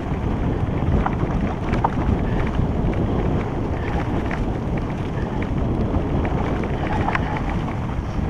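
Wind buffeting a helmet camera's microphone while riding a hardtail mountain bike on dirt singletrack: a loud, steady low rumble with scattered short clicks and rattles from the bike.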